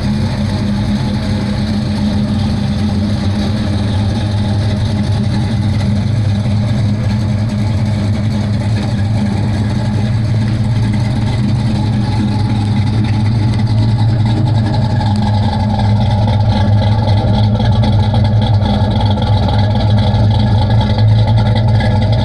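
347 cubic-inch V8 stroker in a 1992 Fox Body Mustang, fitted with a Comp Cams camshaft and exhaling through Flowmaster mufflers, running steadily at idle. It grows slightly louder about two-thirds of the way through.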